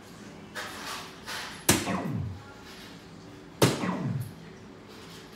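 Soft-tip darts striking an electronic dartboard twice, about two seconds apart; each sharp hit is followed by the machine's short falling electronic scoring sound.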